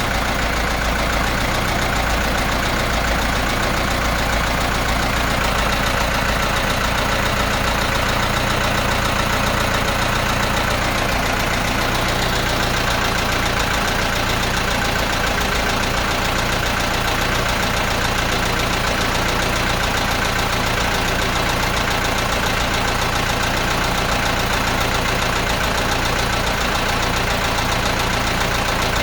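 Perkins 4.107 four-cylinder diesel engine running steadily, with a rapid rhythmic knock from a spun bearing.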